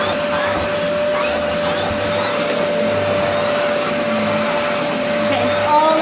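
Vax Power Stretch Pet bagless cylinder vacuum cleaner running steadily with an even whine over a rush of air, its turbo head on the extension hose being worked over carpeted stairs.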